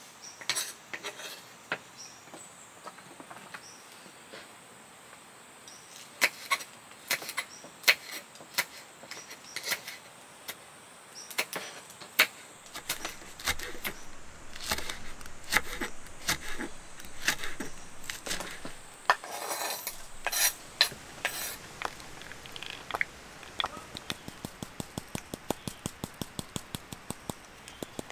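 Clinks and knocks of dishes and utensils being handled, irregular at first, then a run of quick, evenly spaced taps near the end.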